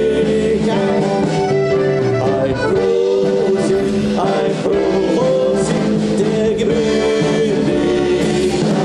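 Two piano accordions playing a lively instrumental tune in held chords and melody, over a keyboard accompaniment with a steady bass.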